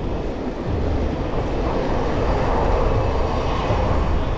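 Low wind and road rumble on the microphone of a bicycle-mounted action camera during the ride, with a broader rushing noise that swells about two seconds in.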